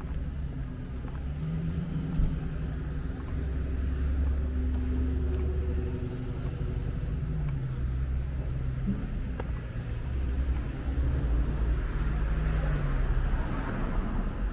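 City street traffic: car engines running and driving past, with a steady low rumble. The traffic grows louder near the end as a vehicle passes closer.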